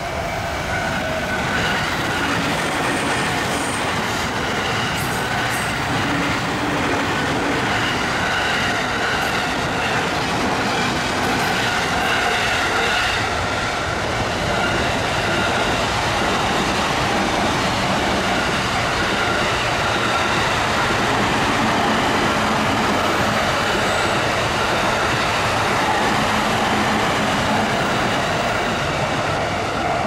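Keikyu Line electric trains passing over a level crossing: a continuous loud rumble of steel wheels on rail with no break.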